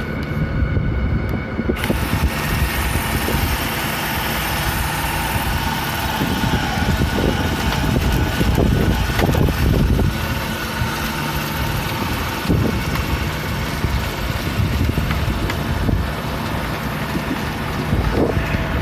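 A machine running steadily with a broad rushing noise and a low rumble, holding at a constant level throughout.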